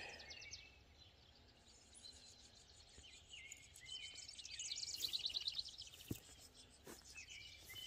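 Faint birds chirping and trilling over a low background hiss, busiest in the middle of the stretch, with one short click a little after six seconds in.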